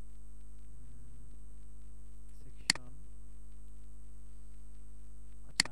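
Steady electrical mains hum, with two sharp mouse clicks, one near the middle and one near the end.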